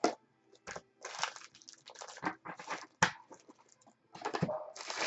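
Foil-wrapped trading-card packs and a cardboard box crinkling and rustling as they are handled, in short irregular crackles with a couple of sharp clicks, then a longer continuous rustle near the end.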